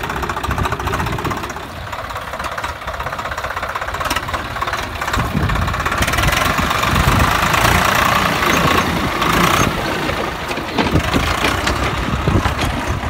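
Swaraj 744 FE tractor's three-cylinder diesel engine running steadily as the tractor drives slowly across the field. It gets louder about halfway through as the tractor passes close, then eases off as it moves away.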